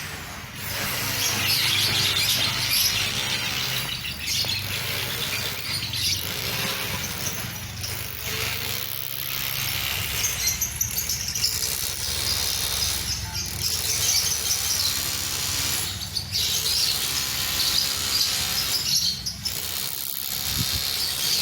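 A flock of about fifty lovebirds chattering and squealing continuously, many high calls overlapping.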